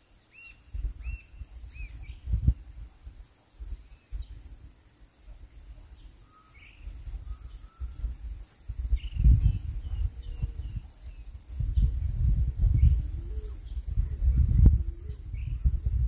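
Insects trilling steadily in a high, even tone, with a few short repeated bird calls near the start and scattered chirps later. An uneven low rumble on the microphone grows louder about halfway through and is the loudest sound.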